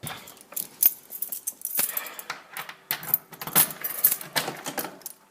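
Rapid, irregular metallic clicking and jingling as a locksmith works a door lock by hand with keys and metal tools.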